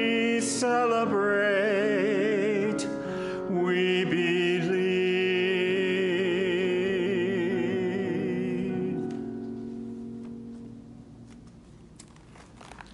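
Closing phrase of a church hymn: a solo voice singing with wide vibrato over held accompaniment notes, ending on a long final note that fades out about nine to twelve seconds in.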